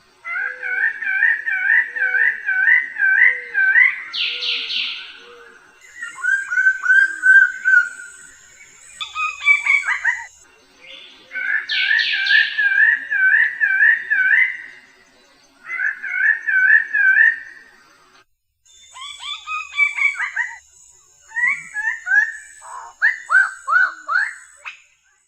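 Bird song: bouts of a few seconds of rapid, repeated warbling notes with short pauses between them. Two brief harsh rasps come in among them, and a steady high buzz runs under some bouts.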